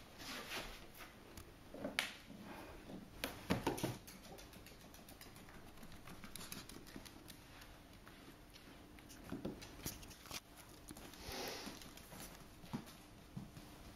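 A dog's footsteps in dog boots on a wooden plank floor: soft, irregular thuds and scuffs as it steps about, with a few louder knocks in the first four seconds.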